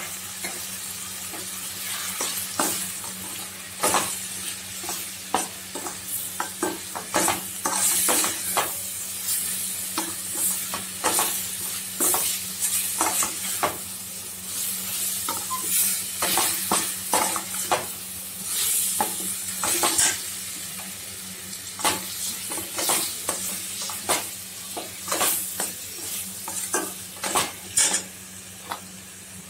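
A perforated steel spatula stirs and scrapes a thick masala paste around a stainless steel kadai, in many quick irregular metal-on-metal scrapes and clinks. Under them runs a light sizzle as the freshly added pav bhaji masala fries into the onion-tomato base, with a steady low hum beneath.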